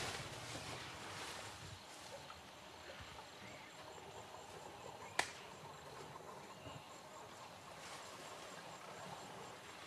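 Faint natural ambience with insects chirring high and evenly, and one sharp click about halfway through.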